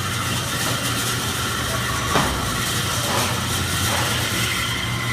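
Bandsaw running steadily with a low hum and a high whine, and one short knock about two seconds in.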